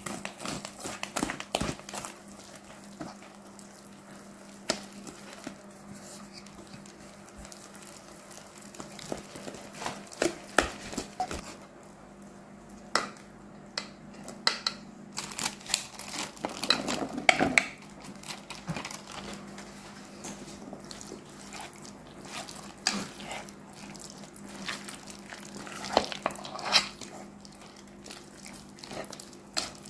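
A wire whisk stirring thick batter in a stainless steel bowl: irregular clinks and scrapes of the wires against the metal, busiest about halfway through, over a faint steady hum.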